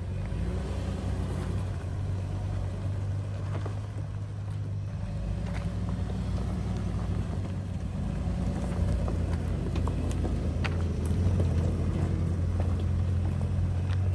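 Toyota 4Runner's 4.0-litre V6 running at low speed as the truck crawls over rough trail: a steady low engine drone that grows a little louder about halfway through, with scattered light clicks and knocks.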